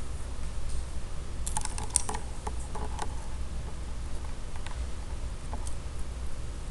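Paper worksheet being slid and shifted on a desk: a cluster of crinkles and taps between about one and a half and three seconds in, then a few faint ticks, over a steady low hum.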